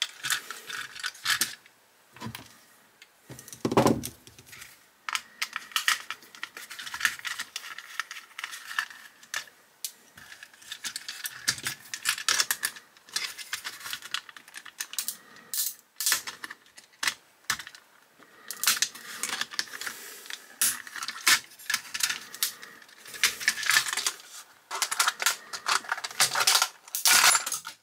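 Small metal and plastic parts of a diecast model car clicking, clinking and scraping as its chassis and engine parts are worked loose with a screwdriver. The ticks and clinks come irregularly, with a duller knock about four seconds in.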